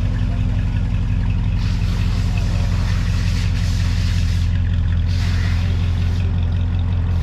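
A vehicle engine running with a steady low rumble. Two stretches of hiss rise over it, one lasting a few seconds from just under two seconds in, the other shorter, a little after five seconds.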